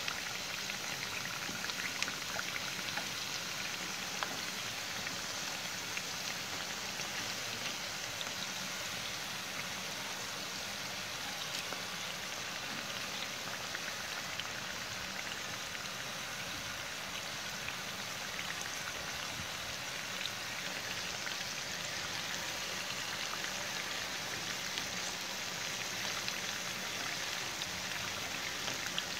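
Hot oil sizzling steadily around purple yam fritters deep-frying in a pan, a dense patter of tiny crackles as the fritters turn golden.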